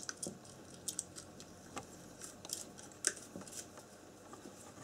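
Faint, irregular clicks and scrapes of 6.3 mm flat push-on connectors being worked onto the terminal pins of a motor run capacitor.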